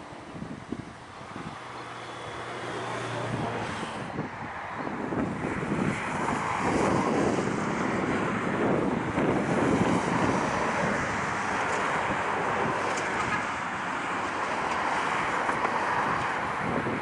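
Jet engines of a Boeing 737-500 on final approach: a steady rumble that grows louder about four seconds in as the airliner comes closer, then holds.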